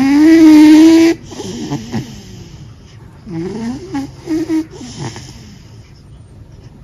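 A cat snoring. A loud, pitched snore in the first second rises slightly in pitch, followed by several shorter, quieter snores.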